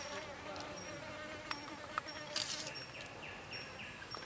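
A fly buzzing close by, with short high insect chirps repeating in the background and a couple of sharp clicks from the knife on the wooden chopping board.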